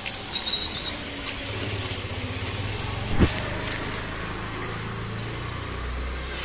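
A motor vehicle's engine running, a low steady hum that sets in about a second and a half in and deepens near the end, with a single sharp knock about three seconds in and a brief high squeak near the start.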